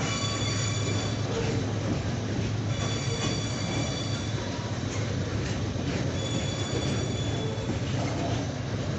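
Freight wagons loaded with eucalyptus logs rolling past, a steady low rumble. Their wheels squeal high against the rails in three spells: at the start, in the middle and about two-thirds through.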